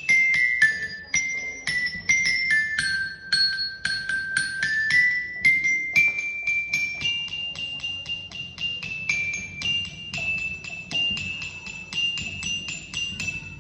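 A melody picked out one note at a time on a small metallophone with high-pitched bars, like a bell lyre or glockenspiel, each bar struck with a mallet and ringing briefly before the next note. The notes come two to four a second, with a few held a little longer in the middle.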